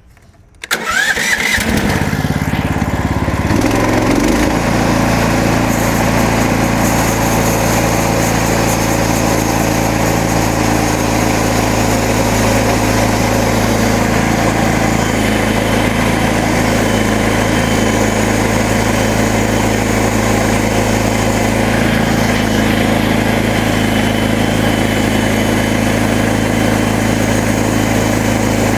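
MechMaxx SM32 band sawmill's gasoline engine starting about a second in, then running loud and steady at speed for the cut.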